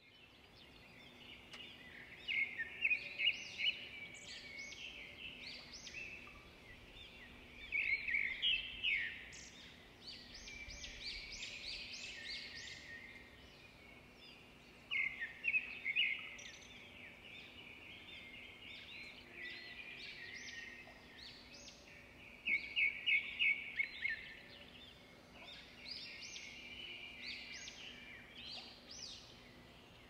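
Birds chirping and twittering in repeated bursts of quick, high notes over a faint steady background.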